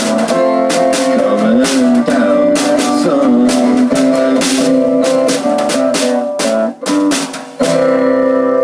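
Acoustic guitar strummed hard with a snare drum beating along. After two short breaks about seven seconds in, the two hit one final chord that rings on.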